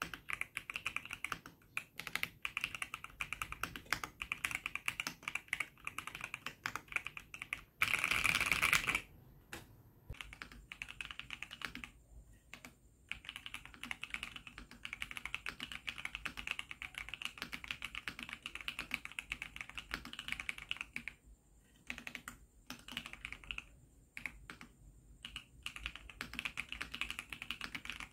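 Typing on a Keychron V6 Max mechanical keyboard fitted with prelubed Akko Cream Blue Pro V3 tactile switches and MDA-profile keycaps: a steady run of keystrokes with a few short pauses. About eight seconds in there is a louder, denser burst of clicks lasting about a second.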